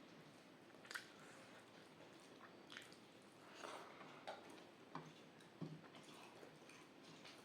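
Faint chewing and mouth sounds of someone eating rice with dal and curries: a few soft, scattered smacks and clicks.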